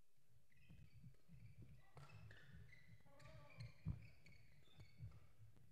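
Near silence: faint sports-hall background with a few soft knocks, the loudest about four seconds in.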